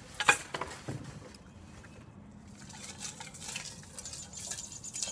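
A metal cooking pot of ice water being lifted: a sharp clank about a third of a second in, then a couple of lighter knocks and a few faint clicks from handling it.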